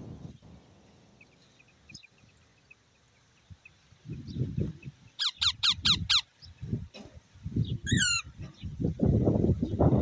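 Psittacula parakeets calling: a quick run of five harsh, falling screeches about five seconds in, then a single falling call about three seconds later, with a few faint high chirps earlier. A gusty low rumble on the microphone runs under the calls from about four seconds in and is the loudest sound.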